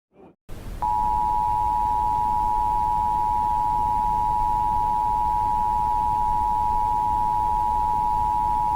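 Emergency Alert System attention signal: a steady two-tone beep, starting about a second in and holding for about eight seconds over faint hiss.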